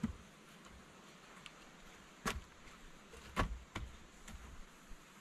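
Wooden poles knocking against each other as an upright pole is worked into a stick-built shelter frame: a handful of sharp wooden knocks, the loudest about a third of the way in and two close together past the middle, with lighter ticks between, over a steady faint hiss.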